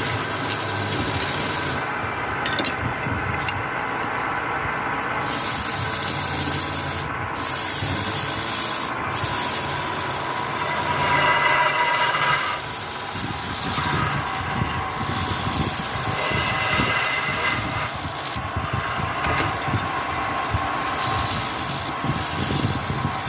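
A woodworking tool rasping and scraping against wood, continuously, over a steady machine hum.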